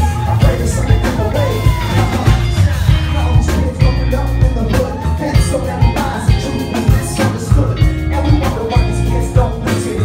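Live band music: a drum kit playing a steady beat with bass guitar and electric guitar, and a vocalist singing into a microphone over it.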